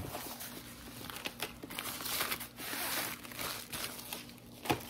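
Rustling and crinkling of a rolled diamond-painting canvas and a plastic package being handled on a table, with a short knock near the end.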